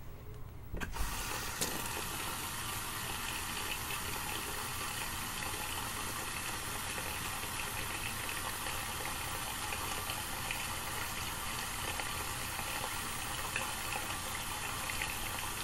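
Water running steadily from a sink tap, turned on about a second in.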